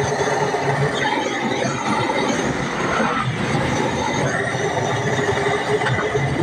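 Hose-fed gas torch burning with a steady hiss of flame while it heats the cracked seam of a radiator for soldering.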